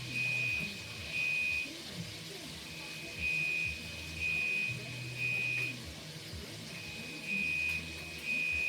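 Smoke alarm sounding its three-beep evacuation pattern, set off by smoke from cooking: high beeps of about half a second each, in groups of three with a pause of a second or two between groups.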